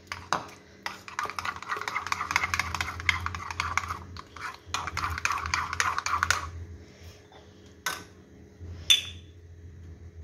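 Metal spoon stirring a thick mayonnaise-and-yogurt sauce in a bowl, scraping and clinking rapidly against the bowl for about six seconds. Then it goes quieter, with a single click and, near the end, one sharp knock that is the loudest sound.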